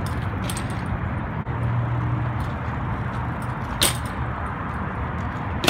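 BMX bike riding on asphalt over a steady outdoor hiss of wind and traffic. A sharp clack comes about four seconds in and a louder one at the very end as the bike strikes a concrete ledge.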